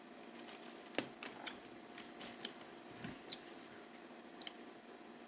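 Scattered small sharp clicks and light knocks, about eight in four seconds with one duller knock near the middle: the sounds of sipping from a stemmed glass and handling it and a plastic juice bottle.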